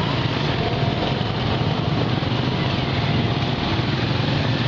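Motorcycle engine running steadily while riding, with wind noise on the microphone and street traffic around.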